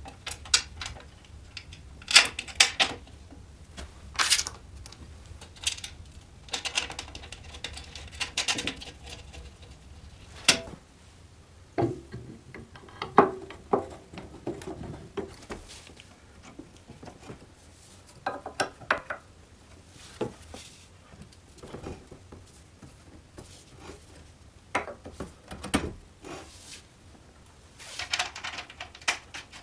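Irregular clicks, knocks and light metallic clatter of moped parts being handled and fitted by hand. A plastic mudguard is pressed into the painted frame, the rear swingarm is moved and a rear shock absorber is put in place.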